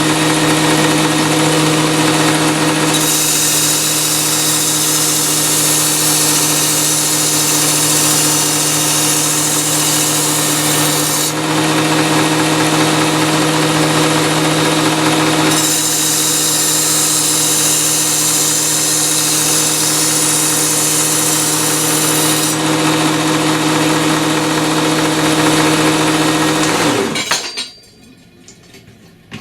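Work Sharp Ken Onion belt sharpener with the Blade Grinder Attachment running with a steady motor hum, and two long stretches of grinding hiss as a knife blade is drawn along the abrasive belt. Near the end the motor is switched off and spins down.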